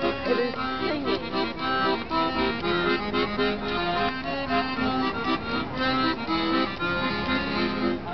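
Piano accordion played continuously, a tune of held notes over sustained chords.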